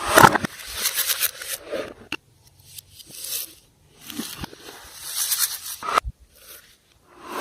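Slime being worked by hand, crackling and scraping in bursts of a second or two, with a sharp click about two seconds in and another about six seconds in.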